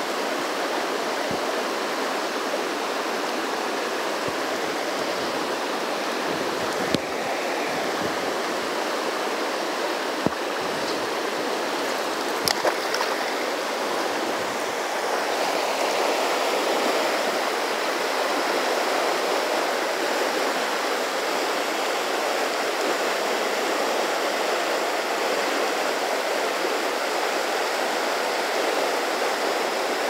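River water rushing over rocks in a riffle: a steady rush of water, a little louder in the second half, with a few brief sharp clicks in the first half.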